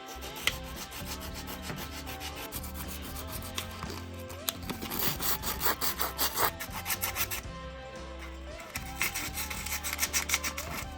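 Quick, even rasping strokes of a hand tool rubbing back and forth on a workpiece, like filing or sawing, in two spells: one about halfway through and one near the end. Background music runs underneath.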